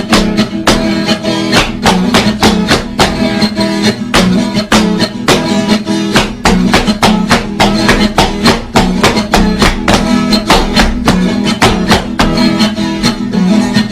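Instrumental break of a sertanejo raiz song: acoustic guitars strumming a fast, even rhythm over a steady bass line, with no singing.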